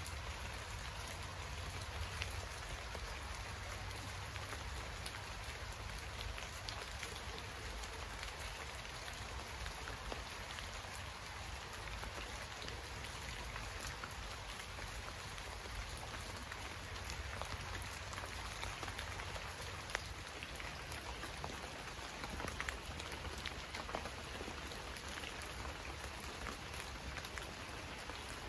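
Steady rain falling, a dense even patter with many individual drops ticking through it, over a steady low rumble.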